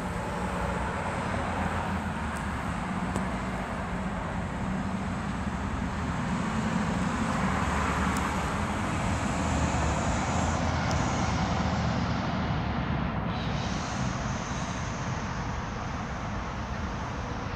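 Steady low hum and hiss of background noise, with no distinct events.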